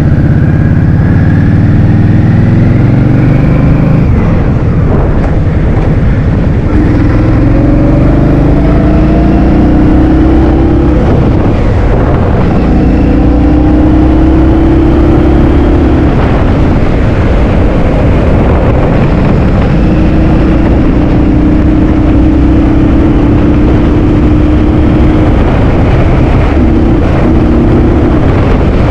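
Heavy wind buffeting the microphone of a riding scooter, with the scooter's engine note underneath rising in pitch over several stretches as it speeds up.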